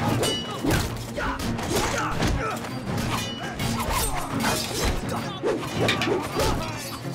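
Film fight sound effects of a melee with staffs and spears: a rapid run of hits, thuds and crashes, with a couple of brief ringing metal clangs, over an action music score.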